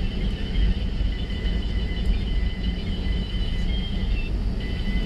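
Airbus A320 airliner rolling on the ground, heard inside the cabin: a steady low rumble with the jet engines' steady high whine over it.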